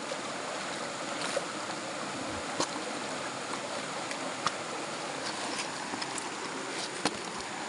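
Shallow stream running steadily over rocks, with a few light clicks now and then.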